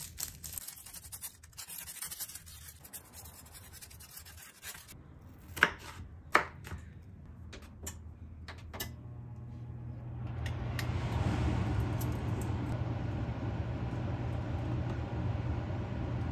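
Kitchen knife slicing a white onion on a bamboo cutting board: a run of light clicks and taps. Two sharp knocks follow, and about ten seconds in a steady low hum with a hiss sets in and keeps going.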